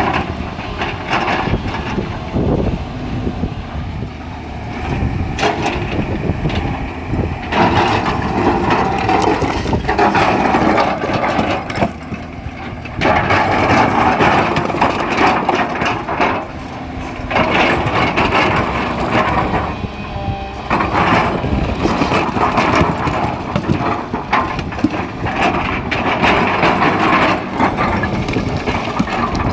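Excavator engine running under load, with stone knocking, scraping and cracking as rock is worked and dropped.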